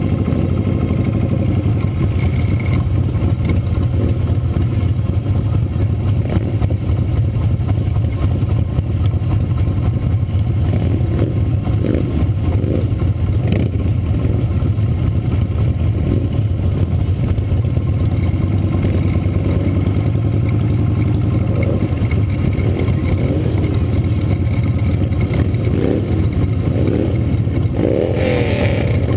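Motorcycle engines running at low parade speed, heard from on the bike. The note is steady, with engines revving up and down a few times in the second half.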